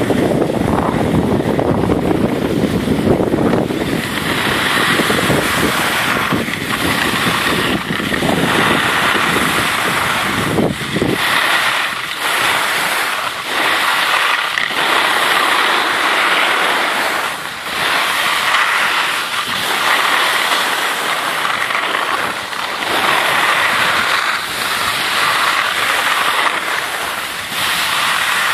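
Skis hissing and scraping over spring snow on a downhill run, swelling and easing every few seconds. Wind rumbles on the microphone for roughly the first ten seconds.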